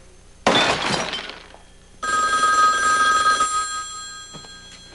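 A sudden crash about half a second in that dies away over about a second, then a telephone ringing: one steady ring starting about two seconds in that fades out.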